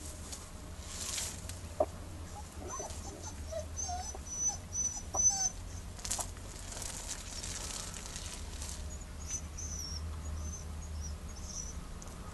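Puppies squeaking and whining in short, very high-pitched squeals that come in two spells, with a few lower cries among the first, over a steady low hum.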